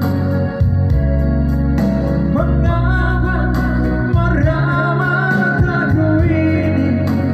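Music: a song with a sung vocal melody over sustained keyboard and bass notes and a steady beat.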